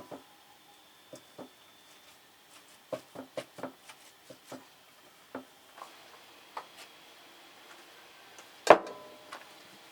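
Cooking gear being handled: a scatter of light knocks and clicks, a quick cluster of them about three seconds in, then one loud clank that rings briefly, near the end.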